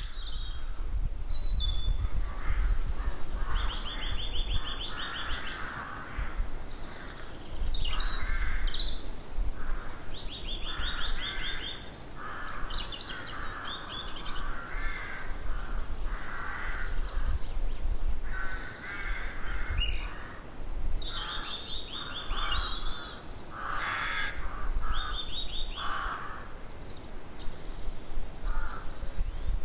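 A rookery: many rooks cawing, their harsh calls overlapping and coming every second or so, with higher chirps of small birds and a steady low rumble underneath.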